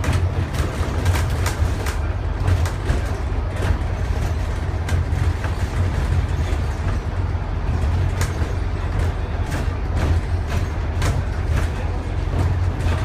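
Scania N230UD / Alexander Dennis Enviro400 double-decker bus under way, heard from inside at the front: a steady low diesel engine and road drone, with frequent clicks and rattles from the bus body and fittings.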